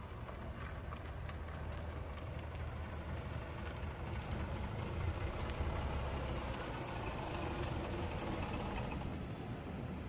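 2005 Mazda RX-8's two-rotor Renesis rotary engine running at low speed as the car rolls slowly closer, its low hum growing louder around the middle. The engine is running again after a flooded crank-but-no-start.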